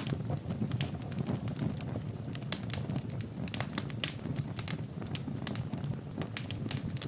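Wood fire burning in a fireplace: irregular sharp crackles and pops, several a second, over a steady low rumble.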